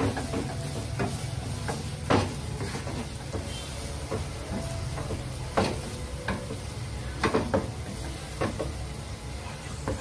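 Instant noodles being stir-fried in a nonstick frying pan: a soft sizzle, with a wooden spatula scraping and knocking against the pan at irregular moments, the sharpest knocks about two seconds in, in the middle and a quick pair a little later. A steady low hum runs underneath.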